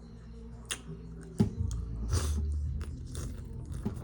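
Close mouth sounds of eating: wet lip smacks and clicks with chewing, several sharp smacks standing out among them.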